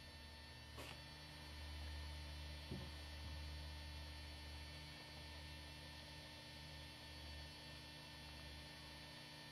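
Low steady electrical hum with faint room tone, with a soft tick about a second in and a small knock near three seconds.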